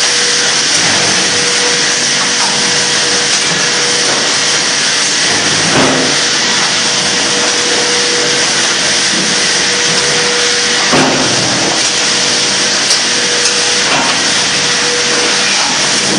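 Loud, steady noise of a lumber mill's board-handling machinery running, with a thin steady hum and a few sharp knocks of boards being moved on the stacker attachment.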